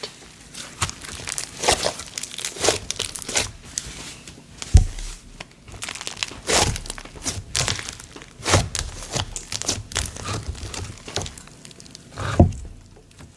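Thick snow butter slime being squeezed and stretched by hand, giving irregular crackling, sizzly pops, with a low thump about five seconds in.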